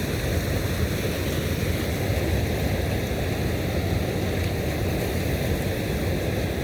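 Steady rush of moving water, an even hiss with no breaks or separate strokes.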